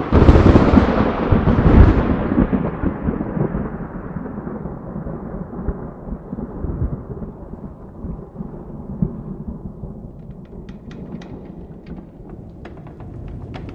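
A sudden thunderclap, then a long low rumble fading over about ten seconds. Near the end, scattered raindrops begin to tick as rain sets in.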